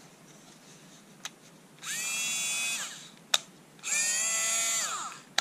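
Small electric motor and gearbox of a Black & Decker cordless screwdriver running in two short bursts of about a second each, whining up to speed and winding down each time. A sharp click falls between the bursts and another comes at the end.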